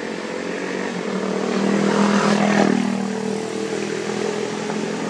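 A motor engine droning steadily, swelling louder about two seconds in and then easing off, like a vehicle or aircraft passing.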